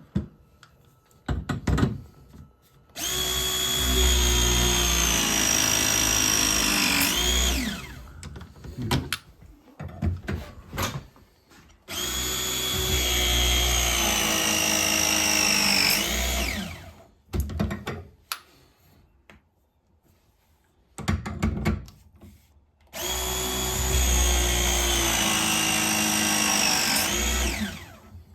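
Battery ProPress crimping tool pressing copper fittings three times, each press a motor run of about four and a half seconds whose pitch sinks slowly as the jaws close under load, ending in a quick pitch sweep as it finishes. Short clicks and clatter of handling come between the presses.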